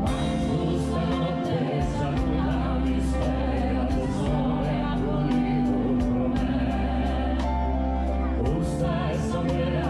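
A man and a woman singing a duet in Sardinian with a live band of electric guitar and drums behind them, the voices coming in right at the start.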